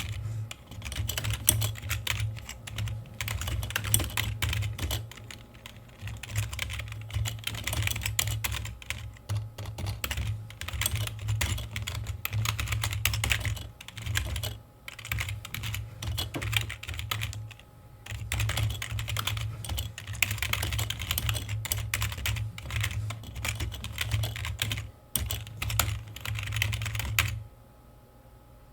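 Computer keyboard being typed on in quick, continuous runs of keystrokes with a few brief pauses, stopping near the end.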